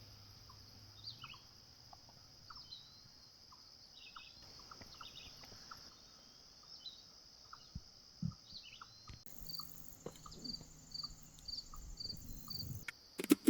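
Faint nature ambience: a steady high insect trill with scattered short bird chirps. From about two-thirds of the way in, a high call repeats about twice a second.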